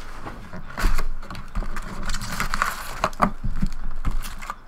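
Trading-card packs being pulled out of a cardboard hobby box and set down in stacks on a table: a papery rustle with several light knocks, the loudest about a second in.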